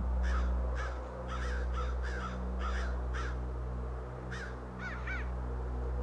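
Crows cawing repeatedly, about ten short calls, over a steady low drone.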